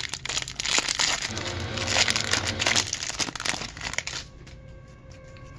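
Foil Pokémon booster pack wrapper crinkling and tearing as it is opened and the cards are pulled out, with dense crackles for about four seconds before stopping abruptly.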